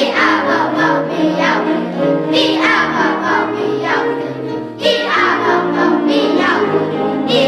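Children singing a song together with instrumental backing.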